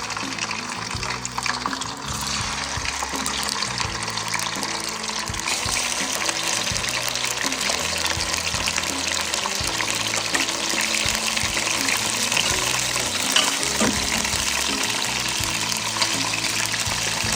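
Tomato-glazed chicken pieces sizzling as they flash-fry in hot oil, a steady dense hiss. Background music with sustained low notes plays underneath.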